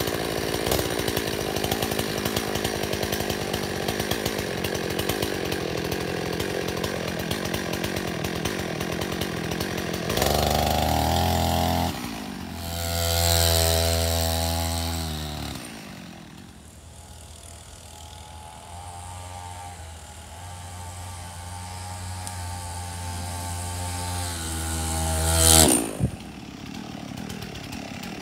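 A Husqvarna 51 two-stroke chainsaw engine driving a mountain bike, running hard. Later its pitch rises and falls with the throttle, and it grows louder and fainter as the bike rides near and away, peaking sharply as it comes close near the end.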